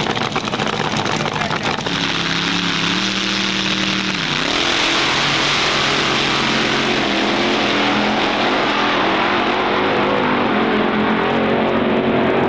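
Supercharged nitro-burning engine of a fuel altered drag car: a crackling idle, a steady rev from about two seconds in, then a loud full-throttle launch from about four and a half seconds in that stays loud to the end.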